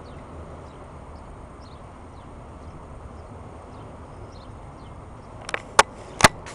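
Autorack freight cars rolling past: a steady rumble of steel wheels on the rails. About five and a half seconds in, a few sharp, loud clicks cut through.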